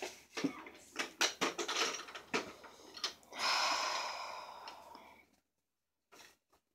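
Thin plastic shopping bag crinkling and rustling as plastic toys are stuffed into it: first a quick run of light clicks and knocks from the toys, then a longer rustle of the bag.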